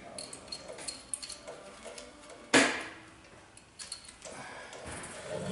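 Light metallic clinks and rattles of exhaust hardware and hand tools as a snowmobile's aftermarket exhaust can is worked loose, with one sharp metal clank about two and a half seconds in.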